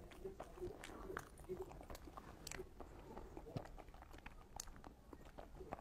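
Close-miked chewing of a soft, chilled cream-filled ice bread (snow-skin bun), with wet mouth clicks and smacks at an irregular pace.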